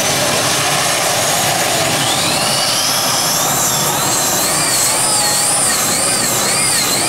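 Modified Free Class pulling tractor running flat out as it drags the weight sled, a loud, dense, steady engine noise. About two seconds in, a high whine climbs and then wavers up and down a little faster than once a second.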